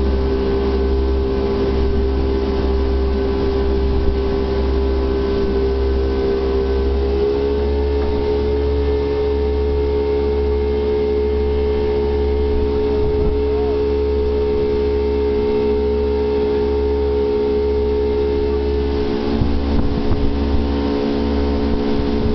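Jet boat engine running steadily under way, over a heavy low rumble. Its pitch steps up slightly about seven seconds in and then holds.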